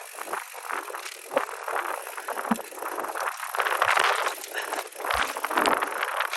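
Mountain bike riding through a wet, rocky section of trail: tyres rolling through mud and over stones, with a rattle of small clicks from the bike, coming in uneven surges.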